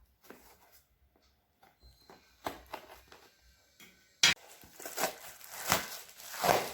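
A delivery parcel of cosmetics being opened by hand: scattered small taps and clicks, then a sharp snap about four seconds in and rustling, tearing packaging.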